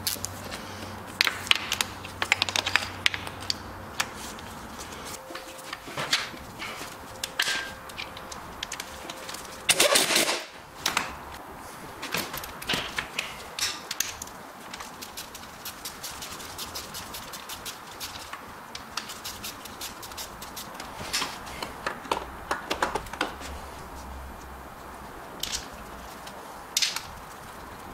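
Scattered metal clicks and knocks of hand tools and parts being worked on a car engine during refitting, with a louder cluster of knocks about ten seconds in.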